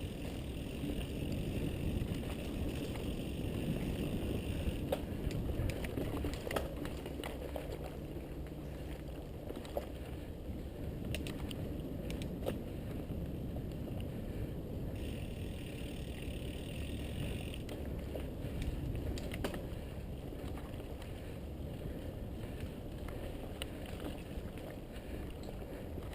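Mountain bike riding on a dirt trail: a steady rumble of tyres and wind on the microphone, scattered clicks and rattles from the bike, and a higher buzz that comes in twice, at the start and again about fifteen seconds in.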